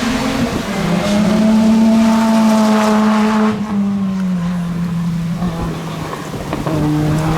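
Rally car engine running hard at high revs, its note holding steady and then dropping in pitch about three and a half seconds in and again near the end.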